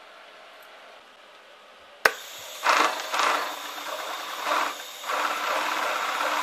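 Global 63900CH single-needle cylinder-bed lockstitch industrial sewing machine stitching denim. A faint hum, then a sharp click about two seconds in, followed by three short runs of stitching and, from about five seconds in, steady fast running.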